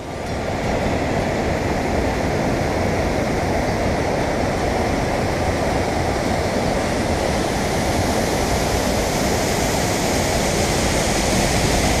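Steady roar of a wide waterfall with fast, muddy floodwater pouring over rock ledges, growing a little louder near the end.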